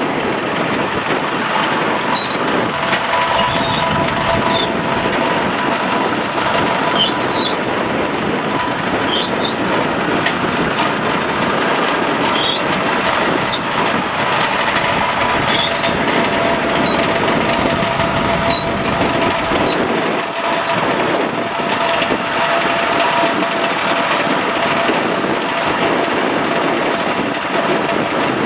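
Kubota DC70 combine harvester's diesel engine running steadily at working speed, with a faint steady whine over the engine.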